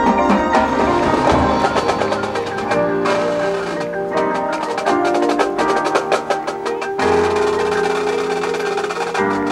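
Marching band field-show music: rapid percussion strikes with wood-block-like clicks and mallet notes over held chords, which change about seven seconds in.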